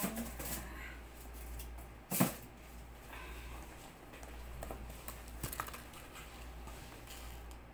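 A few light clicks and knocks, the loudest about two seconds in, over a low steady hum.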